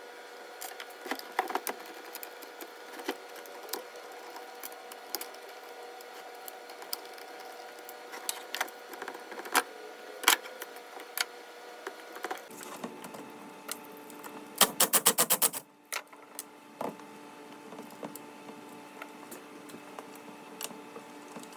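Scattered clicks and taps of hand tools working metal parts of a chainsaw being taken apart, over a steady low hum, with a quick run of about eight clicks roughly two-thirds of the way through.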